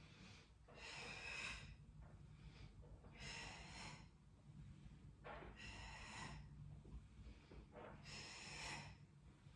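A woman breathing audibly but faintly: four slow breaths, about one every two and a half seconds. This is the paced inhale and exhale of a Pilates exercise.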